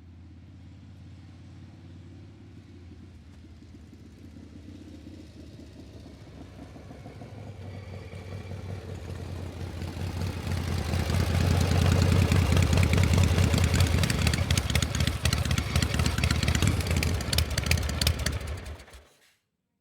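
Metal gear machinery running with a steady low hum. About eight seconds in it builds into a loud, rapid metallic clatter of gears shifting and meshing, which cuts off abruptly just before the end.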